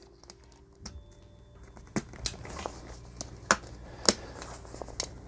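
Snap buttons on a projection screen's fabric clicking into its frame: several sharp clicks from about two seconds in, with handling noise as the screen is pulled taut.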